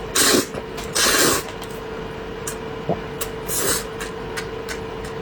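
Close-miked eating sounds: three short noisy bursts, the first two near the start and one around the middle, with scattered light clicks over a steady electrical hum.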